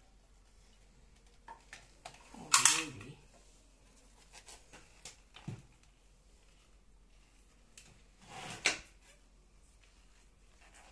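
Clicks, knocks and rubbing of plastic cordless vacuum parts being handled and fitted, with two louder bouts of handling about two and a half seconds in and near eight and a half seconds in.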